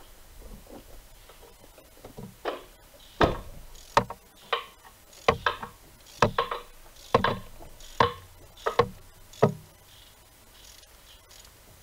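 Ratchet wrench on a long spark plug socket, clicking and knocking in about a dozen sharp, irregular strokes as it is worked back and forth to loosen a spark plug. The clicks start about two seconds in and stop a couple of seconds before the end.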